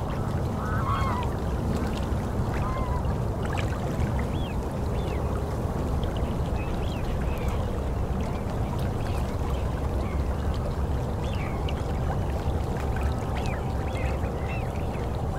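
Waterfowl calling now and then with short, curved calls over a steady low rumble.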